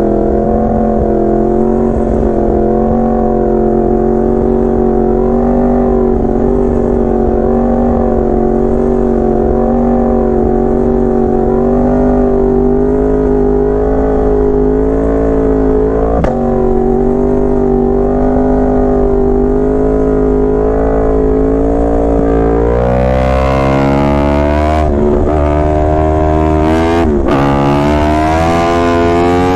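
Yamaha R1 inline-four sportbike engine idling at a slightly wavering, steady pitch, then revved up and down several times in the last seven seconds.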